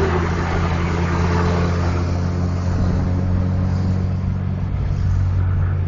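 Vehicle engine running steadily on the road, a constant low drone with road noise and no horn.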